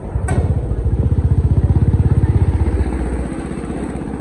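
Motorcycle engine running with an even, rapid pulsing beat that swells louder and then eases off. A single sharp click comes just after the start.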